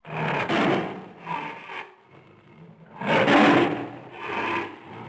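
Lion roaring in harsh, rasping grunts: two pairs of heavy breathy strokes, the loudest a little past halfway.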